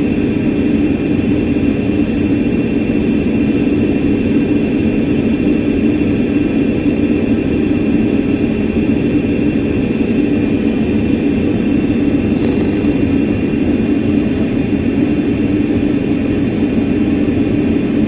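Aircraft engine drone, a loud, steady hum with a constant low tone and a fainter high whine that do not change throughout.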